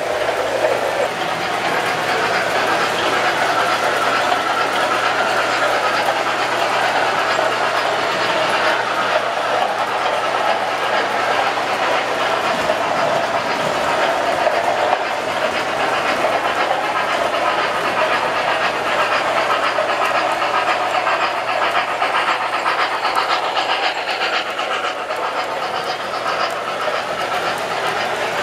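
O-gauge model trains running on three-rail track: a steady rolling rumble of metal wheels with fine clicking over the rail joints.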